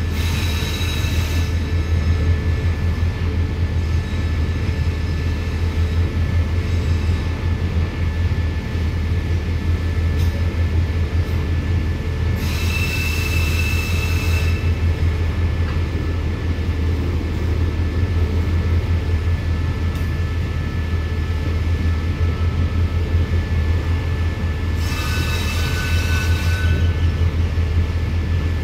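Container freight train's wagons rolling past with a steady low rumble of wheels on rail. Three times, at the start, about halfway and near the end, brief high-pitched wheel squeals rise over the rumble, as the wheels grind on the curved track.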